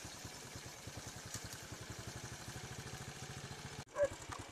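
Small motorcycle engine running at low speed, an even chugging that cuts off abruptly near the end. A dog then barks once, loudly.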